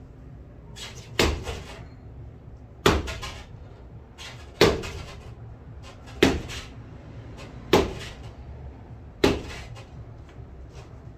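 Cricket bat striking a tennis ball hung on a string, six sharp knocks about every second and a half, each with a short echoing tail in a small tiled room.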